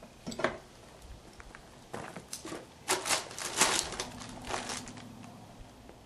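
Handling noise from a heavy axle part: a cluster of crinkles, rustles and light knocks as the steering knuckle housing pulled off a Napco 4x4 front axle is set down on a paper sheet, busiest about three to four seconds in.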